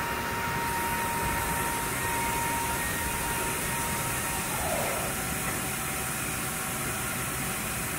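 Steady hum of running machinery in a machine shop: an even noisy drone with a few steady whining tones, one of which stops about halfway through.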